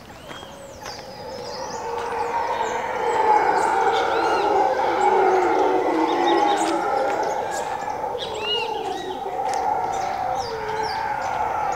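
A troop of mantled howler monkeys roaring together in a dense, continuous chorus that swells over the first few seconds and then holds loud. Birds chirp over it.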